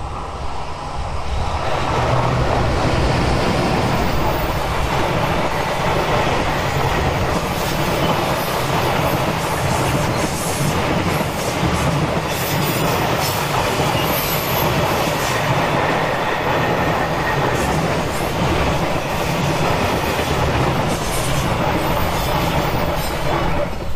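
JR Freight EH500 twin-unit electric locomotive passing close, then its long train of loaded container flatcars rolling by. The steady wheel-and-rail rumble carries a clickety-clack over the rail joints and brief high wheel squeals on the curve. The rumble builds over the first couple of seconds and falls away near the end as the last wagon passes.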